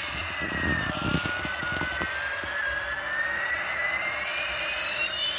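Battery-powered toy Airbus A380 airliner playing its electronic jet-engine sound effect: a hissing jet noise with a whine that falls in pitch for about a second, then slowly rises again. A few low knocks sound in the first two seconds.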